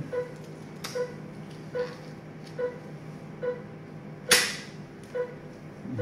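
Cath-lab patient monitor beeping in time with the heartbeat: a short, clear tone repeating a little under once a second, about 70 a minute. A sharp click sounds about a second in, and a much louder one a little past four seconds in. A low steady hum runs underneath.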